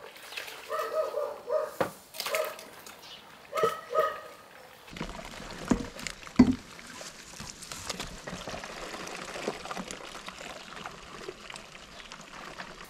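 A dog barking in short, rapid bursts several times, then water sloshing and pouring with two sharp knocks about six seconds in.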